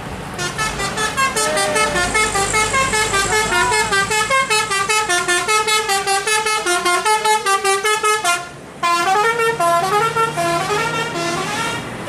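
Bus telolet horn, a multi-tone basuri set of electric air horns, playing a fast melody of short stepping notes, several a second. It breaks off briefly about eight and a half seconds in, then starts up again. A bus engine hums under it near the end.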